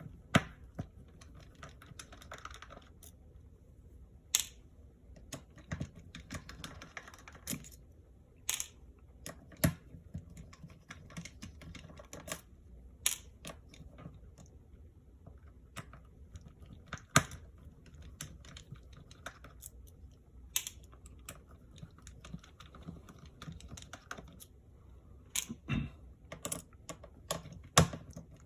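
Irregular small clicks and taps of a screwdriver and tiny screws on a MacBook Air's metal case as the screws holding the LCD are taken out, with a few sharper knocks, the loudest about two-thirds of the way through and near the end.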